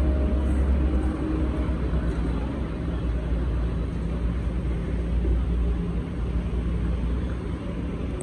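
Wash-bay pressure washer's motor and pump running with a steady low hum.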